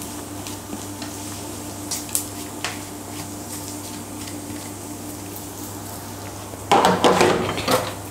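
Butter with chopped ginger, garlic, green chilli and grated carrot sizzling gently in a non-stick frying pan on a low flame, with a few faint clicks of the plate against the pan. Near the end comes a louder second or so of scraping and clatter in the pan.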